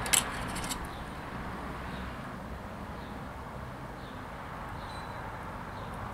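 A quick cluster of small clicks just after the start, from handling the line and spool at the table, then a steady low outdoor background rumble.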